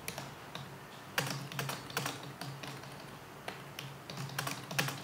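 Irregular sharp clicks and taps, several a second in uneven groups, over a faint steady low hum.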